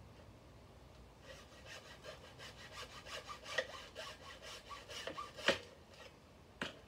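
Hand saw cutting a mitre through a thin stripwood beading strip: quick back-and-forth strokes for about four seconds, ending in a sharp knock as the cut finishes, then a couple of sharp knocks near the end.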